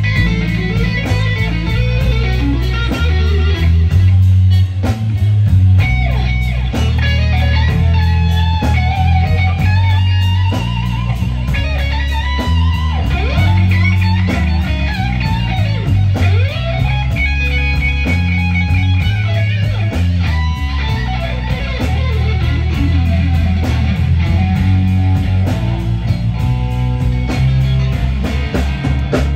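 Live blues band playing a slow blues instrumental passage: a lead electric guitar solos with many string bends and wide vibrato over an electric bass line and rhythm guitar.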